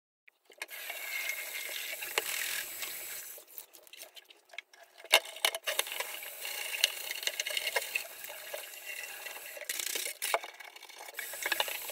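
Kitchen tap water running into and over a plastic screen wash reservoir bottle being rinsed out in a sink, starting abruptly about half a second in. Scattered knocks and clatters from the plastic bottle being handled come through the water noise.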